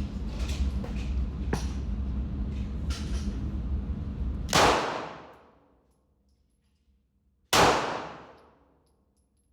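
Two gunshots about three seconds apart, each a sharp crack trailing off in an echo of about a second. A steady low rumble with faint ticks sits under the first half and drops away after the first shot.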